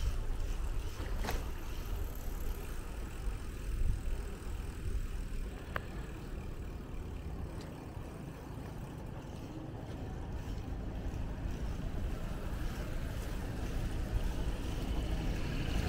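Low wind rumble on the microphone and road noise from a bicycle riding along a street, with two faint clicks about one and six seconds in.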